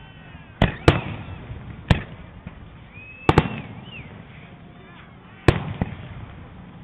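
Aerial fireworks shells bursting in a show: about seven sharp booms, some in close pairs, each followed by a short fading rumble.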